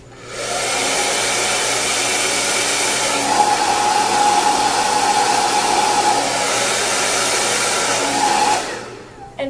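Handheld hair dryer switched on and blowing steadily at hair wound on a round brush, drying the roots; a steady tone joins the rush of air about three seconds in. It is switched off near the end and the sound dies away.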